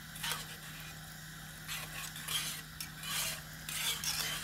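Wire whisk stirring and scraping through a creamy sauce in a pan, in irregular strokes about once or twice a second.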